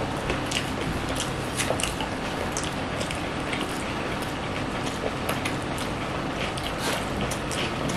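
Close-up eating sounds: chewing, smacking and many small sharp mouth clicks as people eat paratha and mutton liver curry with their fingers, over a steady background hum.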